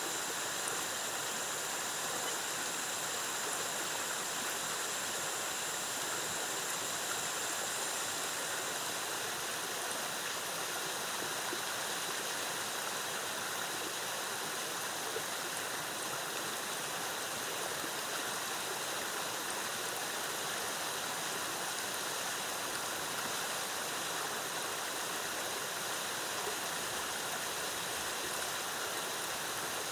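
Rainforest waterfall: water cascading in a steady, even rush. A faint, high, steady tone rides above it, fading out about nine seconds in and coming back near the end.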